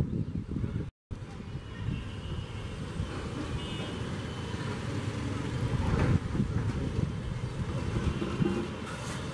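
Urban outdoor background: a low rumble of distant street traffic with a few faint horn toots. The sound drops out completely for a moment about a second in.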